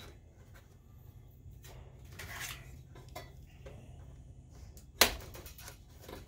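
Small clicks and rustles of hands pulling wire connectors and cables loose inside an opened DLP projector, with one sharp click about five seconds in.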